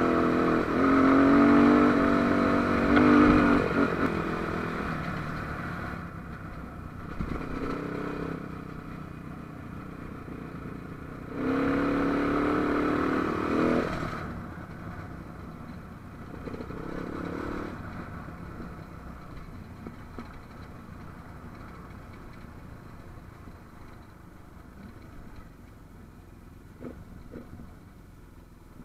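AJP trail motorcycle's single-cylinder engine riding along a dirt track, its pitch rising and falling as it revs and changes gear. It is loudest in the first few seconds and again about twelve seconds in, then runs lower and quieter towards the end.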